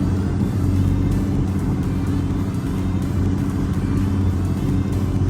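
Outboard motor on a small boat running steadily at idle, with an even, unchanging note.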